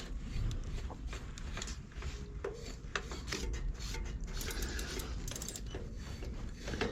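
Mountain bike chain and gears turning, with a run of irregular small clicks and rattles. The chain is dry and dusty, and the owner says it squeaks for want of oil.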